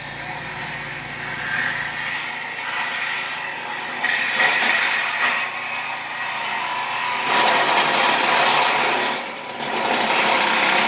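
Corded Sawzall reciprocating saw cutting through the rusty steel frame of a mobile home, running steadily with louder stretches about four seconds in and again near the end, and a short dip just before the end. The steel is weak and cuts easily, like butter.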